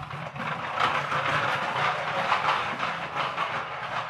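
Rubber-band-powered plastic toy tractor rolling across a wooden parquet floor, its hard plastic wheels and body giving a continuous rattle that swells about a second in and then eases slightly.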